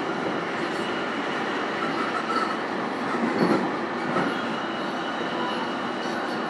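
Steady running noise of a JR East E233-series electric commuter train, heard inside its motor car (MoHa E232): steel wheels on the rails and the running gear at speed.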